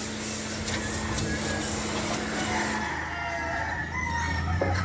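Pressure washer running with its spray hissing, then shutting off about three seconds in, leaving a lower steady hum.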